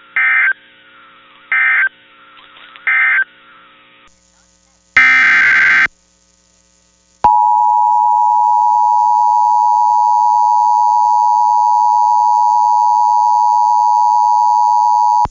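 Emergency Alert System signalling. First come three short screeching digital SAME data bursts, the end-of-message code of the previous alert. About five seconds in comes one longer SAME header burst, and after a second's pause a loud steady alert attention tone sounds for about eight seconds and cuts off sharply.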